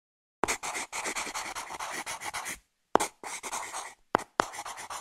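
Pencil scratching on paper as it writes: several bursts of rapid strokes with short pauses between them, each opening with a sharp tap.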